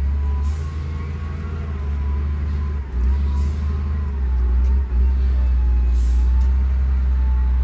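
LiuGong wheel loader's diesel engine running as the loader creeps down a muddy slope: a steady low rumble with a wavering whine above it.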